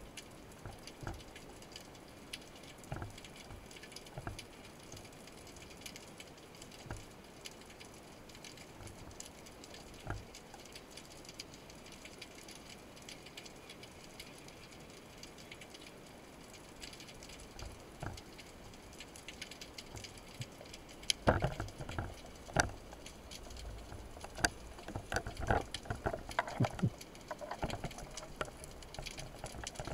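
Underwater background heard through a camera housing: a faint steady crackle with scattered clicks. From about 21 seconds in comes a run of louder, irregular knocks and scrapes.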